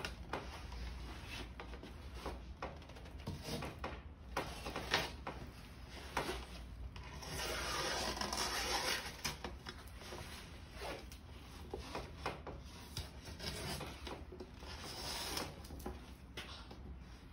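Scraper blade scraping old sealant off a pane of window glass in short, irregular strokes, with one longer continuous scrape about halfway through.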